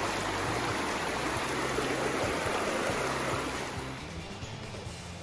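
Shallow creek water rushing and burbling over rocks, dropping noticeably in level about three-quarters of the way through. Quiet background music with steady low notes runs underneath.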